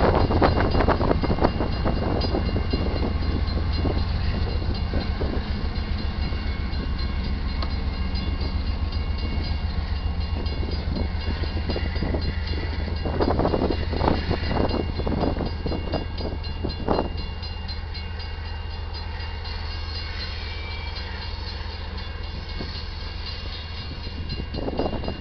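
Loaded freight train rolling past: a steady low rumble of cars with fast, continuous wheel clicking on the rails, a few louder clanks about two-thirds of the way through, then the rumble eases somewhat.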